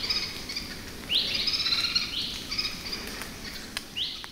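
A bird singing repeated high phrases, each a quick rising note running into a string of rapid notes, every second or two, over steady forest background hiss.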